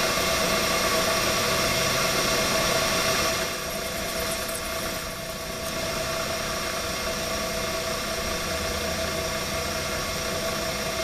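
Milling machine spindle running steadily with a whine, its end mill being lowered into a drilled hole in steel to slot it. The sound drops a little about three and a half seconds in.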